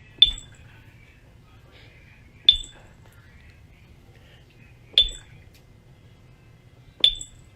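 Four sharp clinks, about two and a half seconds apart, each a hard tap with a short, bright ring, over a faint low hum.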